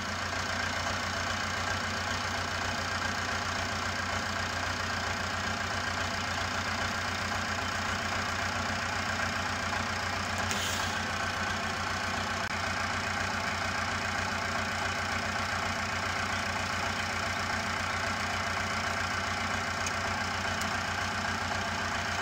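Farm tractor engine idling steadily, with a brief high click about halfway through.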